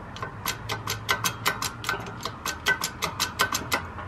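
Rapid, fairly even metallic clicking, about six clicks a second, each with a slight ring, from hand work on the parts set under a hydraulic shop press.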